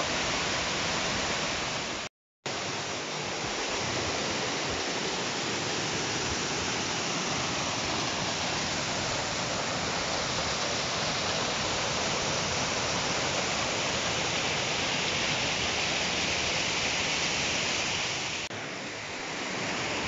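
Waterfall rushing, as water falls over rock ledges and cascades between boulders, in a steady, even roar. The sound cuts out completely for a moment about two seconds in, and dips briefly near the end.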